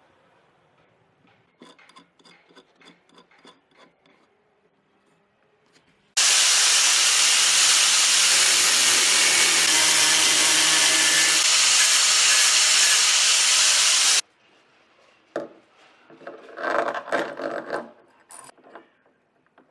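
Wood being worked: light tapping and scraping, then a power tool runs loudly and evenly on wood for about eight seconds, starting and stopping abruptly. A few knocks and scrapes follow.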